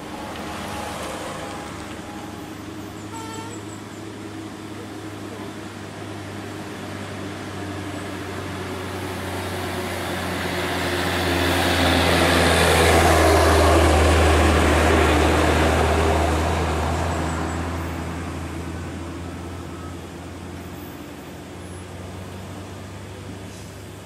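Diesel engine of a large Hino truck passing close by: it builds up, is loudest about halfway through, then fades away, over a steady low engine hum.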